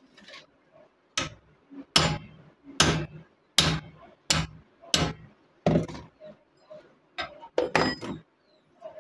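Steel hammer striking a steel punch held on the ground-down pivot rivet of old blacksmith tongs clamped in a bench vise, driving the rivet out so the tongs come apart. About seven sharp metallic blows, evenly spaced under a second apart, then a few lighter, quicker knocks near the end.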